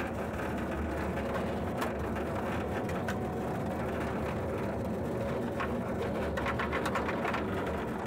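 A loaded livestock trailer being towed, heard from inside among the heifers: a steady road rumble with scattered clanks and rattles from the metal trailer.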